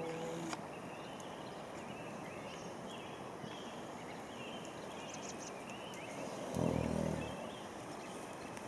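Steady outdoor background with faint bird chirps, and a short low hum-like call lasting about half a second a little past six seconds in.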